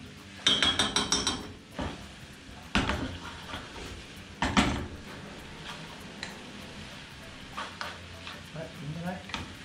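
Metal cooking utensils clattering against a frying pan and saucepan as spaghetti is tossed with tongs. A quick run of ringing clicks comes about half a second in, and two louder knocks follow near three and four and a half seconds. Pasta fries lightly in the pan underneath.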